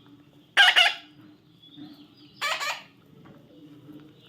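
Parrots squawking: harsh calls, a quick double squawk about half a second in and another about two and a half seconds in.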